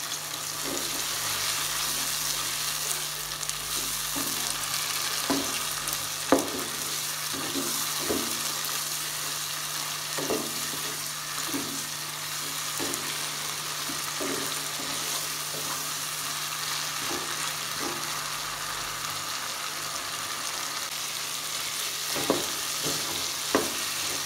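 Turnip pieces sizzling in oil and masala in a non-stick pot while a wooden spatula scrapes and knocks against the pot about once a second as they are stir-fried. A faint steady low hum runs underneath.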